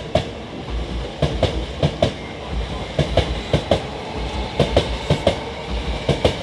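Hankyu 1000 series electric train's wheels clacking over rail joints as it pulls out of the station: sharp clicks in quick pairs about once a second over a low running rumble.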